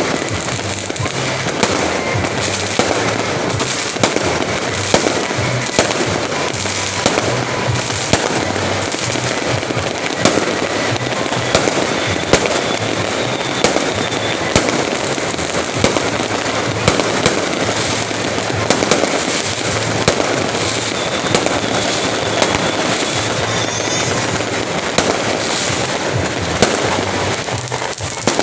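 Fireworks going off without a break: a dense, continuous crackle of explosions with frequent sharp bangs.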